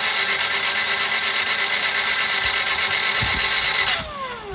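Starter motor cranking a freshly swapped Toyota 2ZZ-GE engine with its fuel injectors pulled, so it turns over without firing: a loud, steady, high whine that cuts out about four seconds in and winds down.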